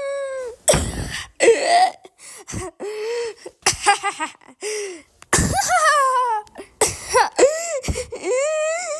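A string of high-pitched cartoon laughing sound effects, one short voiced laugh clip after another, cut off abruptly between them.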